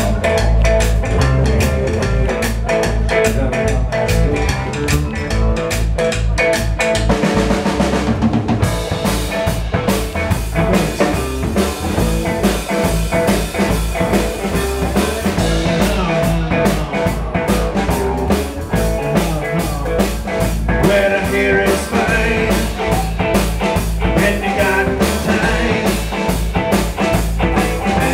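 Live band playing rock with a steady beat: a drum kit with cymbals and an electric bass guitar.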